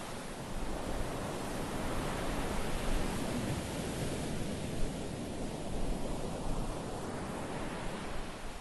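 Surf breaking and washing up a pebble beach: a steady rush of water that builds a second or so in and eases off near the end.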